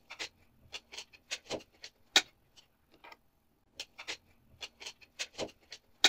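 Light, irregular plastic clicks and taps as a washing machine door's plastic handle-and-latch piece is handled and pressed into place in the plastic door frame, with one sharper click about two seconds in.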